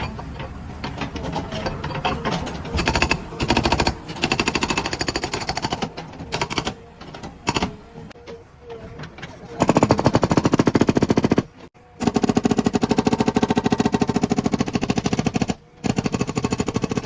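Fast, steady mechanical hammering, many sharp blows a second, patchy at first and then loud and continuous, broken by two brief pauses.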